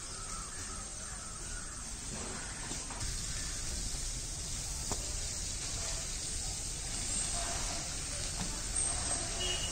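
Water spraying from a hose onto a concrete floor, a steady hiss that grows louder about three seconds in. Crows are cawing behind it.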